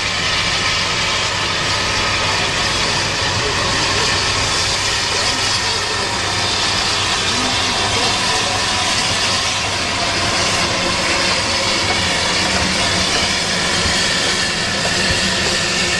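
Steam rotary snowplough Xrot 9213 at work, its steam engine driving the front rotor: a steady loud hiss and rush of steam and thrown snow over a low mechanical hum.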